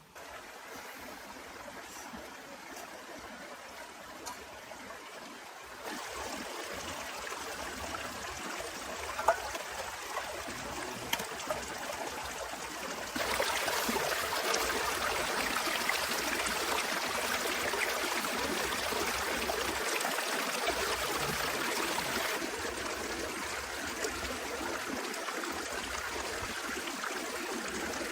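Heavy rain falling, a dense steady hiss with scattered drop taps, getting louder in steps about six and thirteen seconds in and easing slightly near the end.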